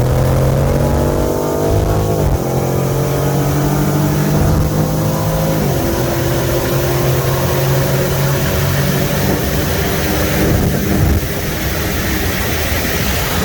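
A BMW 340i's turbocharged 3.0-litre inline-six, with a catless downpipe, pulling at full throttle as heard from inside the car. The engine note climbs steadily and drops sharply at upshifts about two and six seconds in. In the second half, wind and road noise take over from the engine note.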